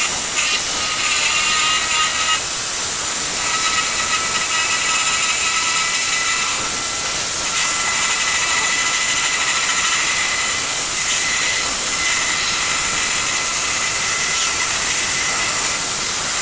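A power tool running steadily with a high whine.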